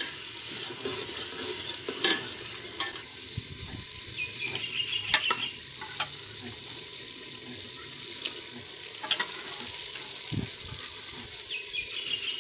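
Black chickpea curry bubbling and sizzling steadily in a large cooking pot, with a few sharp clicks and knocks and two brief high squeaks.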